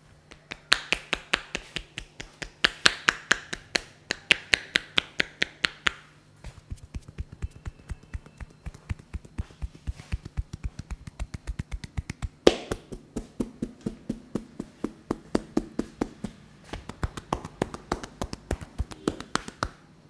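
Rapid percussive tapping of hands on a man's head in an Indian head massage, the palms pressed together so each strike gives a sharp, clapping snap, about six a second. The run breaks briefly around six seconds in, and one strike about twelve seconds in is louder than the rest.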